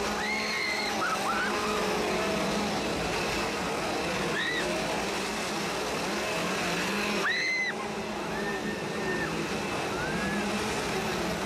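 Several gas chainsaws revving over and over, their engine notes rising and falling over one another, with a few short shrill cries from the crowd cutting through.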